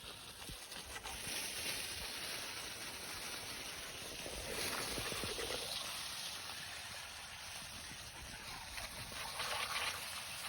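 Water spraying and splashing onto an old deer skull and its antlers, washing off moss and loose debris: a steady hiss of spray that shifts in tone as the stream moves over the bone.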